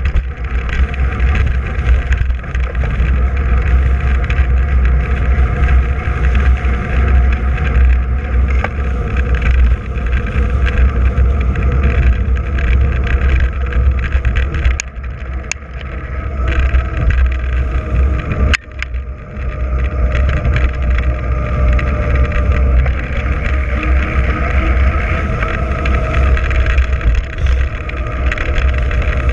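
Wind buffeting the microphone of a bike-mounted camera on a fast downhill run on asphalt, a continuous deep rumble with rushing tyre and air noise over it. A few sharp clicks come about halfway through.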